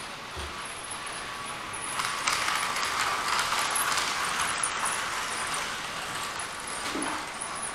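Model train running along the layout's track, its motor and wheels making a steady mechanical running noise. It grows louder about two seconds in and eases off after about five seconds as the train passes.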